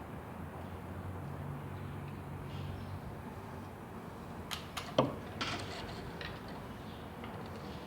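A few sharp clicks and one louder knock of hard parts being handled while a washing machine drain pump is taken apart, over a low steady hum.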